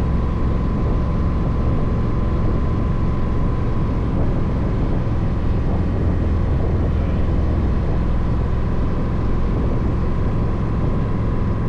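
Kawasaki Voyager 1700's V-twin engine running at a steady road speed, mixed with wind rushing over the microphone. A faint steady whine sits above the engine.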